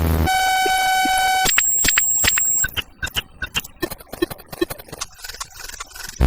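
A rapid string of short sound-effect clips: a low buzz cuts off, then a steady electronic beep, then a higher electronic tone, each about a second long, followed by several seconds of irregular clicks and knocks; a loud low buzz starts again right at the end.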